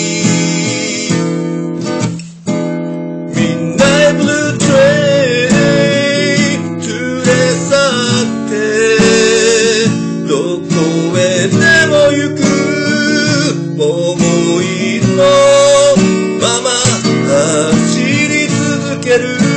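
Steel-string acoustic guitar strummed in a steady rhythm, with a melody line wavering above the chords. The strumming breaks off briefly about two seconds in.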